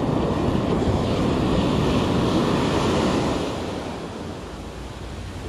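Ocean surf washing up the beach, a steady rushing hiss that eases off after about three and a half seconds as the wash recedes, with wind rumbling on the microphone.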